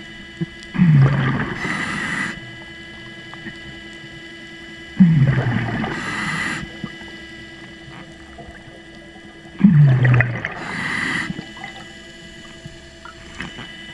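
Scuba diver breathing through a regulator underwater, three breaths about four and a half seconds apart. Each breath is a bubbly burst with a falling low note, followed by a brief hiss. A steady hum from the underwater scooter's motor runs underneath.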